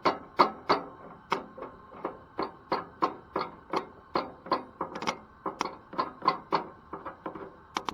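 Battery jump box clamps being tapped together again and again to throw sparks at a camp stove burner: sharp snapping clicks, about three a second.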